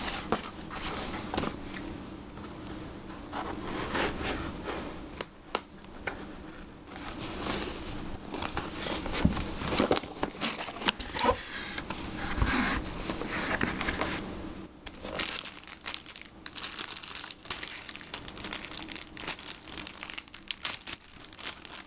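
A cardboard shipping box being handled and torn open, with many irregular scrapes, rustles and clicks; near the end a clear plastic bag crinkles as the contents are unwrapped.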